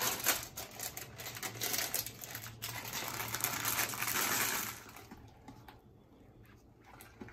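Plastic bag of chocolate chips crinkling as it is handled and tipped, the chips rattling out into a pan of batter: a dense rustle with many small clicks. It drops off sharply about five seconds in, leaving only faint soft sounds.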